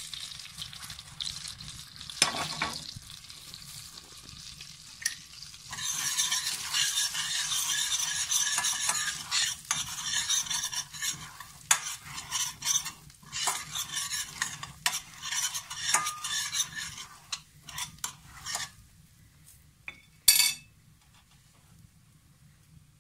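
Breadcrumbs frying in melted butter in a stainless steel pan: sizzling, with a spoon stirring and clicking against the pan. The stirring grows busy about six seconds in and stops near the end, followed by a single sharp clink.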